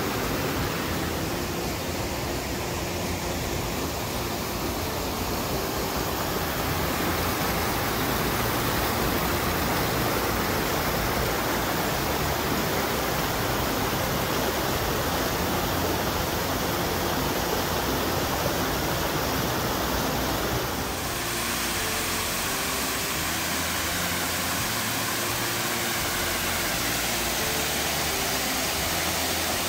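Rushing water of a rocky mountain creek, a steady even hiss. About two-thirds of the way through it changes abruptly to the lighter wash of a tiered waterfall cascading over rock ledges.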